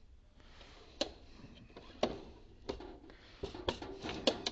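Light clicks and clinks of small screws being handled and sorted, one about every second at first and then several in quick succession near the end.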